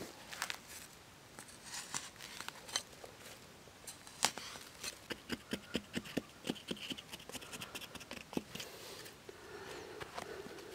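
Digging a narrow hole in hard, dry dirt: scattered scrapes and knocks, then from about five seconds a quick run of a wooden stick jabbing into the soil, about four strokes a second. Near the end, softer rubbing as a hand scoops loose soil from the hole.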